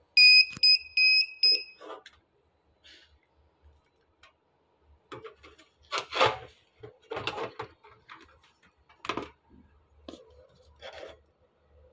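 The piezo buzzer on a Dahua NVR4108HS network video recorder mainboard gives a quick run of about six short, high-pitched beeps in the first two seconds. From about five seconds on come clicks, knocks and rustling as the board and its cables are handled.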